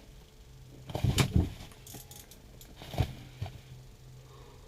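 Clattering and jangling of handled hard objects: a cluster of knocks about a second in and a single sharp knock about three seconds in, over a steady low hum.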